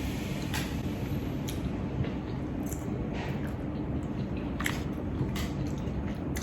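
A person chewing and eating a mouthful of food, with soft wet mouth sounds and a few faint clicks over a steady low room hum.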